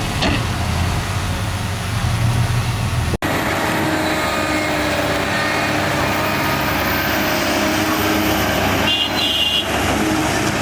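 Diesel engines of heavy earthmoving machines running: a strong low engine rumble for the first three seconds, then, after an abrupt cut, a steadier machine noise with a brief high tone near the end.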